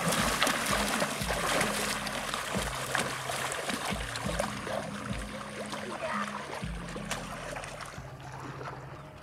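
Trickling, splashing water: a steady hiss that slowly grows fainter.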